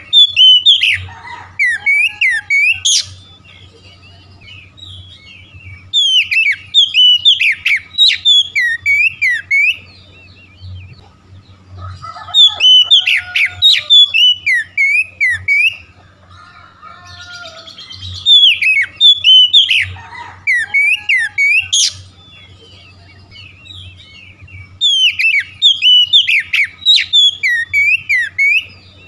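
Caged Oriental magpie-robin (kacer) singing loud, varied phrases of rapid whistled and chirping notes. The song comes in five bursts of about three to four seconds each, roughly one every six seconds.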